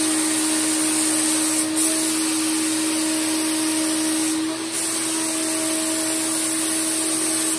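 Fuji Mini Mite 4 Platinum four-stage HVLP turbine running with a steady whine while the spray gun hisses air and finish onto paper. The hiss breaks off briefly about two seconds in and again about four and a half seconds in.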